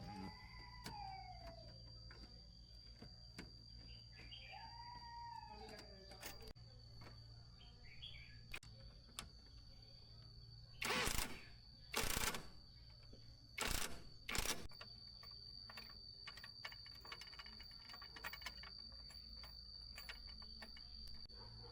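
Birds calling, with two slurred, falling whistles early on, over a steady high insect trill. Midway come four short, loud bursts of rushing noise, each about half a second long.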